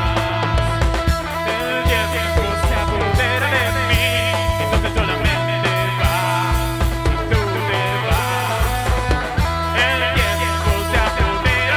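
Live rock band playing: electric guitars, bass and drums keeping a steady beat, with a singer's voice coming in at times.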